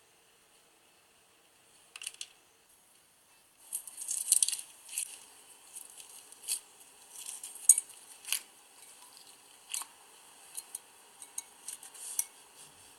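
Small hard plastic charms and decorations clicking and clinking against each other and a container as they are handled for slime-making: scattered sharp clicks with short rattling runs, loudest about four seconds in and again near eight seconds.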